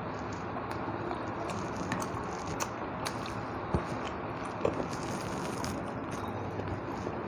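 Close-miked eating sounds: a person chewing a mouthful of rice and fish curry, with scattered wet mouth clicks, two of them louder about halfway through.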